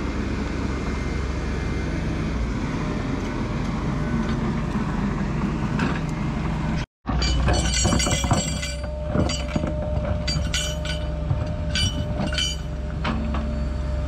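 Excavator diesel engine running steadily. After a brief dropout about seven seconds in, it works under load with a steady high whine while the bucket digs beside the tree, with repeated clanks and scrapes against soil and roots.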